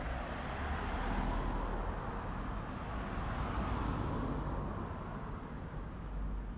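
A car driving past on an asphalt street, its tyre and engine noise swelling about a second in and fading away after about four seconds.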